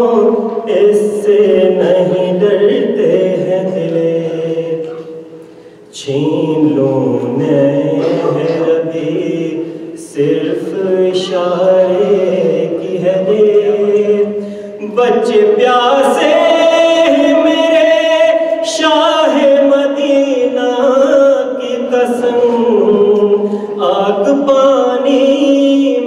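A man singing an Urdu devotional poem unaccompanied, in long held melodic lines, with short breaks between phrases about 6 and 10 seconds in.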